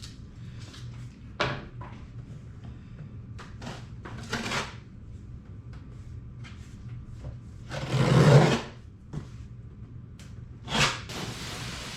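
Cardboard box and packing being handled as a PC case is unboxed: scattered short rustles and knocks, a loud sliding scrape about eight seconds in, and a shorter one near the end.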